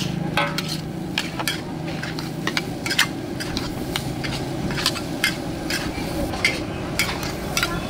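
Steel spatula scraping and clanking against a black wok as fried rice is stirred and tossed, with sizzling. The sharp metallic clanks come irregularly, one or two a second, over a steady low hum.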